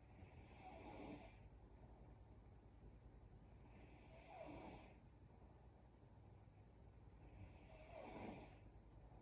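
A sleeping woman snoring faintly, three slow snores each about a second long, spaced roughly four seconds apart.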